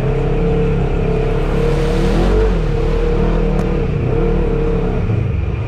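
Polaris RZR Turbo XP side-by-side's turbocharged engine running under throttle while driving, its pitch wavering slightly with a brief louder surge about two seconds in.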